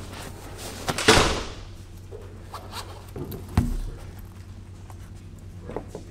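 Gear being handled on a table: a loud rustle or zip about a second in, a sharp knock about halfway through, and small clicks and rustles as a zippered case is opened and handled, over a steady low hum.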